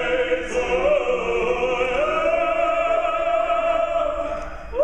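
Operatic singing by a group of voices, one voice holding long notes with vibrato. Near the end the singing drops away briefly before a new high note comes in.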